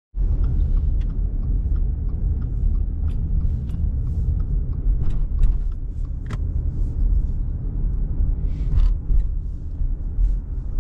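Inside a moving car: a steady low rumble of tyre and road noise, with scattered small clicks and ticks over it.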